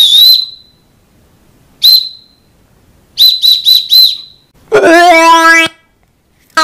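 A high whistle blown in blasts: a long blast that stops just after the start, one short blast, then four quick blasts in a row. About two thirds of the way in, a different, lower honking tone is held for about a second.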